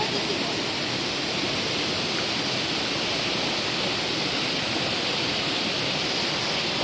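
River water rushing steadily, a constant even noise.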